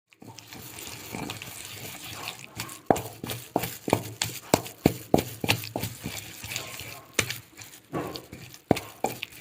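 A series of sharp knocks or clicks, about two a second, over a steady noisy background of handling sound.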